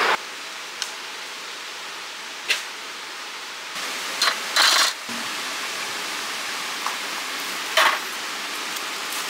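Metal camping cookware clinking as a pot is handled and set into a stove's perforated windscreen: about half a dozen separate light knocks and scrapes, the longest about halfway through, over a steady hiss.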